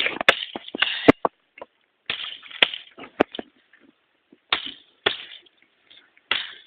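Irregular sharp cracks and knocks with short bursts of rustling: branches being chopped and snapped.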